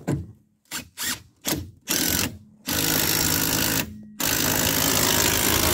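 Cordless impact wrench running a nut onto a car's ball joint stud: a few short blips, then three longer runs, the last about a second and a half.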